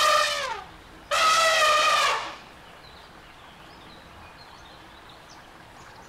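Elephant trumpeting twice: a short call that falls in pitch, then a longer, steadier one about a second later. After that only faint background remains.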